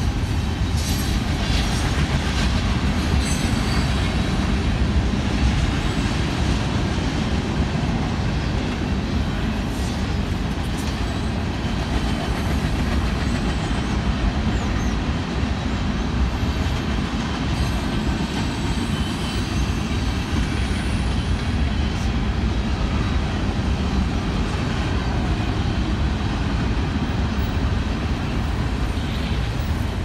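Manifest freight train's cars, tank cars among them, rolling past steadily on steel wheels, with a few faint clicks.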